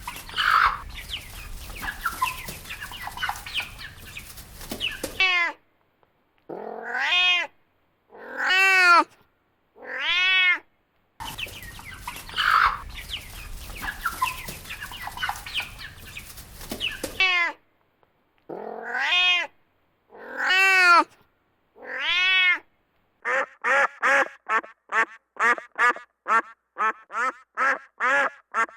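Cat meowing: drawn-out meows that rise and fall in pitch, in two sets of three separated by stretches of background noise, then a quick run of about a dozen short meows near the end.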